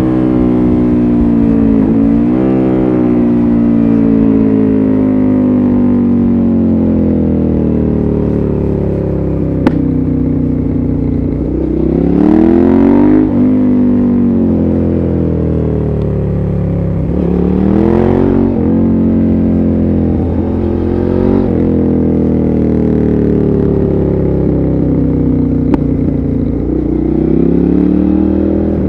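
Suzuki SV650S's 645 cc V-twin through a LeoVince exhaust with dB-killer, ridden hard. The note climbs and drops again and again as it accelerates and shifts, with the strongest pulls about 12 and 17 seconds in. A single sharp click comes about ten seconds in.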